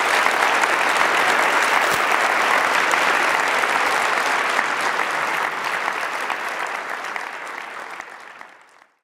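Audience of conference attendees applauding steadily after a speech. The clapping slowly tapers off over the last few seconds and fades out near the end.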